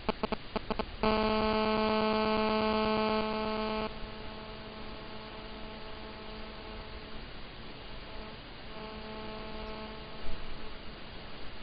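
A steady electrical hum, a low buzzing tone with many overtones, loud for about three seconds and then fainter, with a brief break near the end. It comes in after a quick run of clicks, about six a second, in the first second, and a single sharp click sounds near the end.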